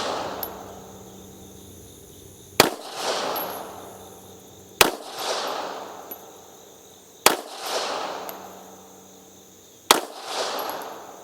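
P83 pistol in 9mm Makarov fired four times, one shot every two to two and a half seconds. Each sharp crack is followed by a rolling echo that dies away over about a second and a half.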